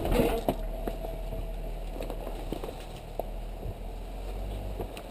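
Jeep Wrangler's 3.6-litre Pentastar V6 running at a low, steady crawl, with scattered knocks and clicks from the tyres and chassis working over rocks. There is a louder scrape or thump right at the start.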